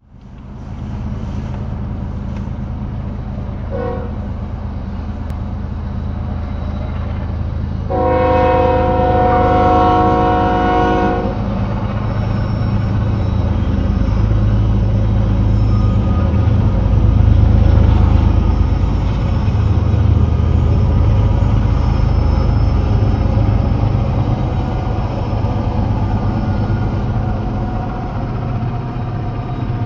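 Diesel freight locomotive sounding its horn, one chord-like blast of about three seconds about eight seconds in, over a steady low rumble of the passing train. The rumble of the rolling freight cars grows louder after the horn. Heard from inside a car's cabin.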